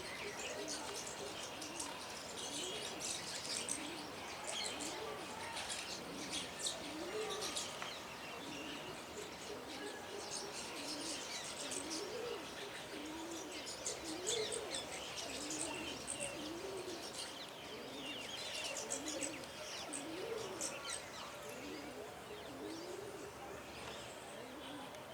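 A flock of small birds chirping and twittering continuously, with a low cooing call, like a dove's, repeating every second or two underneath for most of the stretch.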